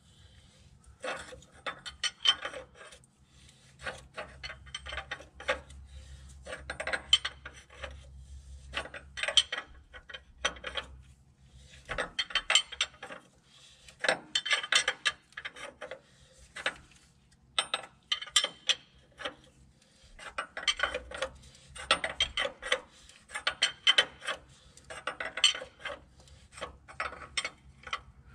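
Hand ratchet clicking in repeated strokes, bursts of clicks every second or two with short pauses between, as it turns the forcing screw of a rear main seal installer to press a new rear main seal onto an International DT466E crankshaft. A faint steady low hum runs underneath.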